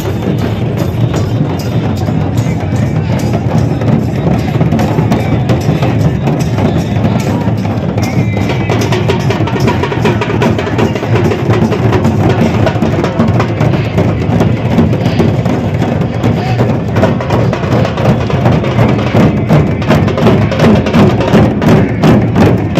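A group of large double-headed barrel drums beaten with sticks in a steady, loud rhythm, over the noise of a big crowd. The strokes become sharper and more distinct in the last few seconds.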